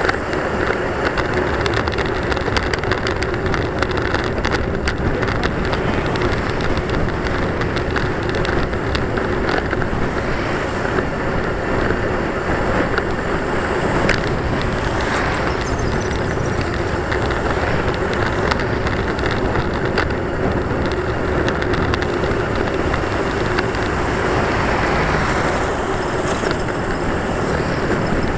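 Steady wind and road noise on a bicycle-mounted camera riding a paved road, with many small rattles. A large truck passes the other way about halfway through.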